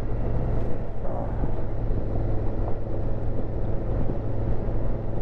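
Honda Africa Twin CRF1000L's parallel-twin engine running steadily while riding, with wind and road noise over the microphone.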